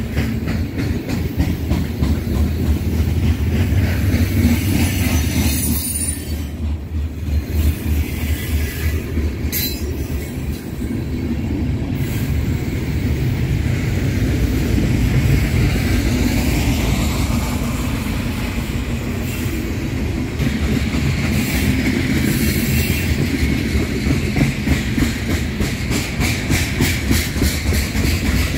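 A freight train rolling past: a steady low rumble of the cars, with a quick run of wheel clicks over rail joints that grows plainer near the end.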